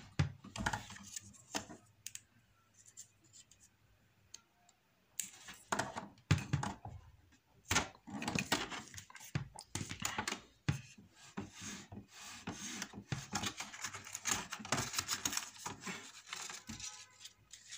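Hands handling parts inside an open Epson XP-2100 inkjet printer at the print head carriage: irregular small plastic clicks, scrapes and rustles. They are sparse at first and come thick from a few seconds in.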